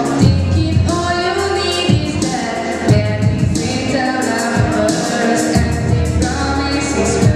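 A girl singing a song into a handheld microphone over a backing track with bass and a steady beat.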